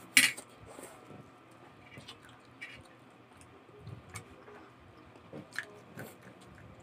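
A short loud slurp of glass noodles about a quarter second in, then wet chewing with scattered small mouth clicks. A couple of crisp bites near the end, into a slice of cucumber.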